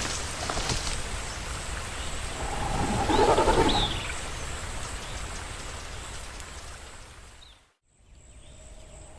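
Designed kaiju monster vocal effect: a low rumbling roar tail dies away, a shorter pitched cry with overtones rises and falls about three seconds in, and the sound fades out to a brief silence shortly before the end, where a faint new background begins.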